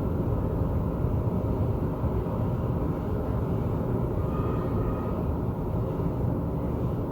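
Thunder rumbling low and steady, a long rolling rumble with no sharp crack.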